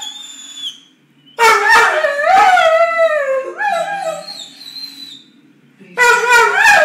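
A Weimaraner 'talking': drawn-out howling, whining calls that waver up and down in pitch, the sound of the dog demanding its ball. A call fades out just after the start, a long one begins about a second and a half in and lasts several seconds, and another begins near the end.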